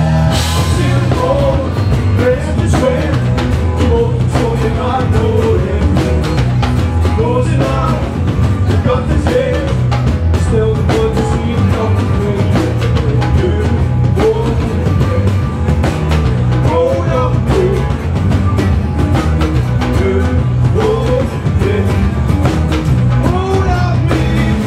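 Live hip hop band playing loud through the PA: a rapper's amplified vocals over a drum kit and electric bass guitar, with a heavy bass line and steady drum hits.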